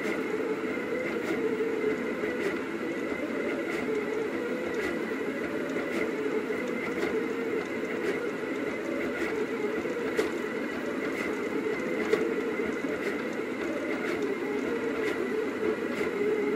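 Rostock delta 3D printer's stepper motors running during a print, a steady warbling whine and buzz that wavers as the print head moves, with faint ticks about once a second.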